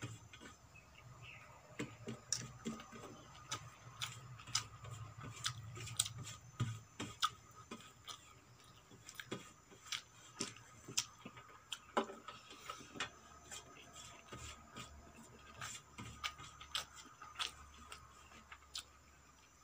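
Close-miked eating sounds: irregular sharp wet clicks and smacks of chewing, with fingers gathering rice and vegetable curry from a stainless steel plate.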